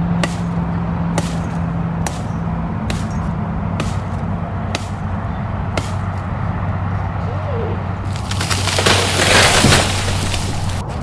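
Machete blade chopping into the trunk of a small sapling, one sharp strike about every second. About eight seconds in comes a louder burst of rustling and cracking wood lasting a couple of seconds.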